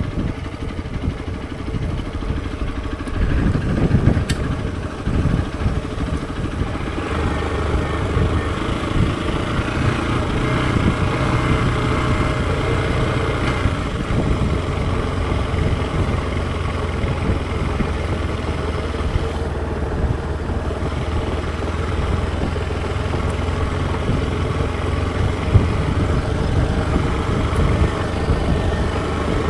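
Hero XPulse 200 4V single-cylinder motorcycle engine running. Its sound is uneven for the first several seconds, then settles to a steady pitch from about seven seconds in.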